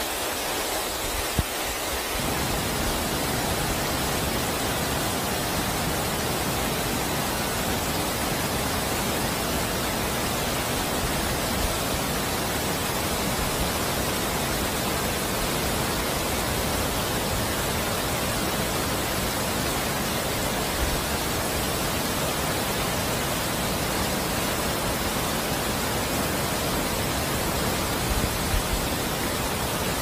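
Steady rush of a rain-swollen mountain stream or waterfall, an even wall of water noise that grows fuller and deeper about two seconds in.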